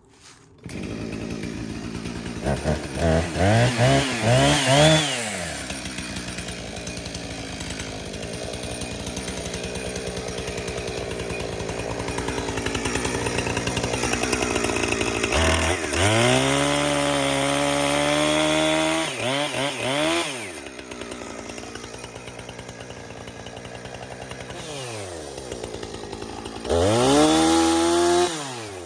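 Two-stroke chainsaw starting up about a second in, then idling and being revved hard three times, its pitch climbing and falling back to idle after each rev. The longest rev comes about halfway through.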